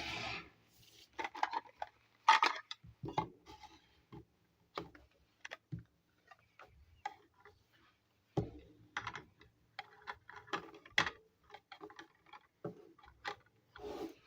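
Miniature plastic toy kitchen set pieces being handled and unpacked: irregular light clicks and taps of plastic parts, with short rustles.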